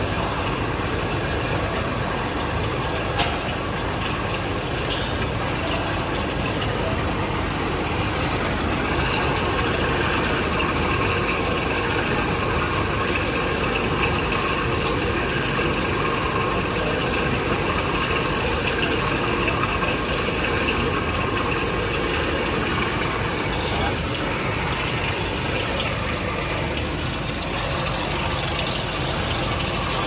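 Continuous rotary-drum charcoal carbonization furnace and its discharge screw conveyors running: a steady mechanical din with a high squeak repeating about once every 1.2 seconds, and carbonized sawdust charcoal pouring from the outlets into a steel bin. There is one short click about three seconds in.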